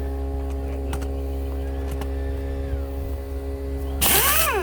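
Steady hum throughout, then near the end a short blast from an air impact wrench: a loud hiss of air with a motor whine that rises and then falls as the trigger is released and the wrench spins down.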